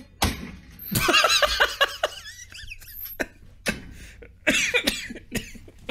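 A man laughing hard in bursts, with a few sharp clicks in between.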